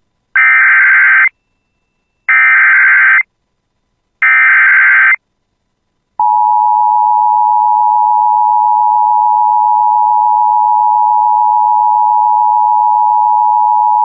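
Emergency Alert System opening: three short bursts of warbling digital SAME header data, each about a second long and two seconds apart, carrying the coded alert, then from about six seconds in a loud, steady EAS attention tone that announces the warning message.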